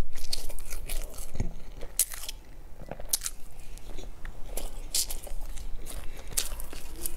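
A person chewing a crispy bite of food close to the microphone: sharp, irregular crunches roughly every half second to second.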